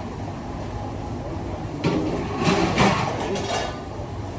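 Busy restaurant kitchen ambience: a steady low hum with indistinct voices, and a burst of clattering kitchenware about two seconds in.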